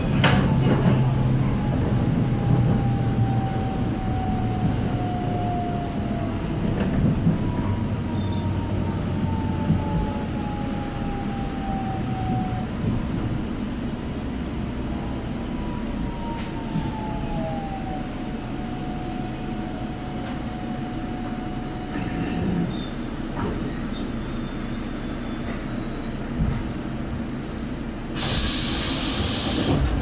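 Ride inside a Seoul Line 1 electric commuter train slowing into a station: a steady rumble of wheels and running gear, with a high whine that slides down in pitch as the train slows. A short hiss of air comes near the end as it stops.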